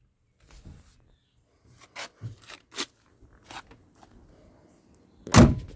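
A few scattered light clicks and knocks, then one louder thump near the end.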